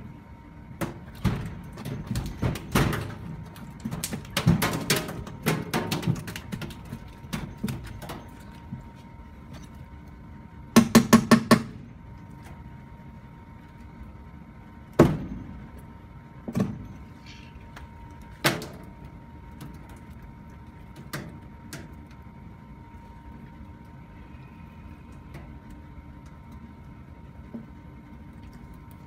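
Knocks and thuds on a wooden cutting board as a live pike conger is pinned through the head and its neck cut. There are irregular clusters early on, then a quick run of about six sharp knocks about eleven seconds in, then a few single knocks.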